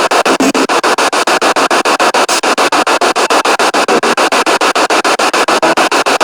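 Spirit box radio sweeping through stations: loud static chopped into rapid, even pulses, about ten a second.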